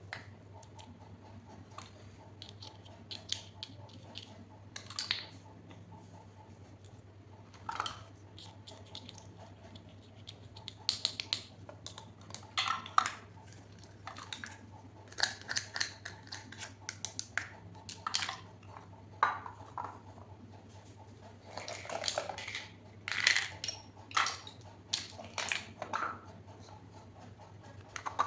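Small plastic toy kitchen pieces and their packaging being handled: irregular light clicks, taps and rustles, sparse at first and busier in the second half, over a steady low hum.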